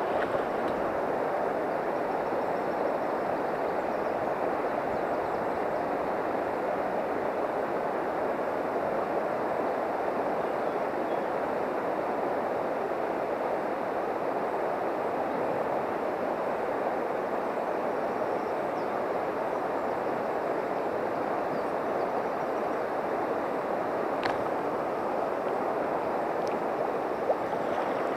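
Steady rushing of a river running over a shallow riffle, an even unbroken wash of water noise. Two faint brief clicks come near the end.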